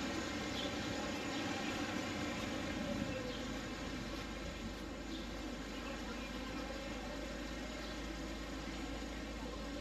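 Steady outdoor background noise, with a low rumble setting in about three and a half seconds in.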